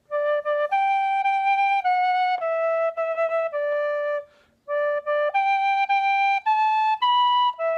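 Metal tin whistle playing a simple melody in clear, held single notes. A first phrase, a short pause about four seconds in, then a second phrase going D, D, G, G, A, B and dropping to E.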